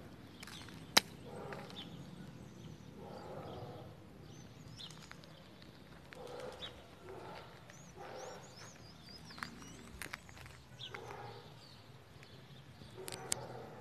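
Outdoor ambience with small birds chirping in short, high, gliding notes and a single sharp knock about a second in. A mid-pitched sound of unclear kind recurs every second or two.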